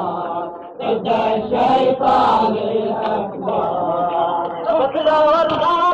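Male voices chanting a sung Arabic anthem together, with a brief break a little under a second in.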